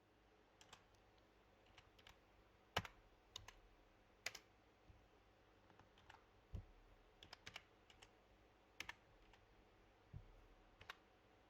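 Faint computer keyboard and mouse clicks, about a dozen short taps at irregular intervals with near silence between them.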